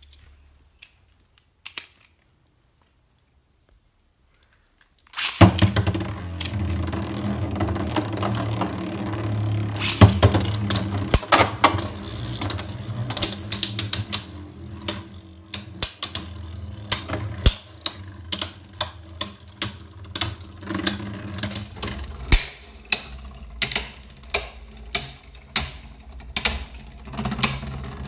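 Two Beyblade Burst spinning tops, Vise Leopard and Cho-Z Achilles, are launched about five seconds in and spin in a stadium with a steady whir, clashing in many rapid sharp clicks. The clicking grows sparser and more regular in the last few seconds.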